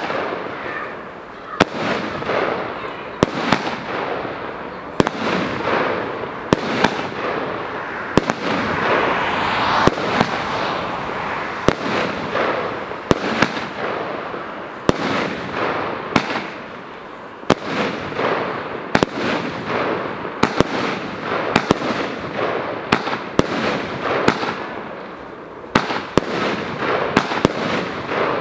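Krudtkongen 'Skagen' consumer firework battery firing shot after shot: a sharp bang about every second to second and a half, with a hissing wash of burning stars between the shots.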